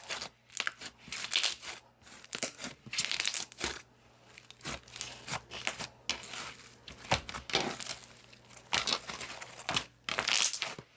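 A perlite and sand slime being squeezed and worked by hand, giving irregular crackling and squishing sounds that come in uneven bursts with short pauses between them.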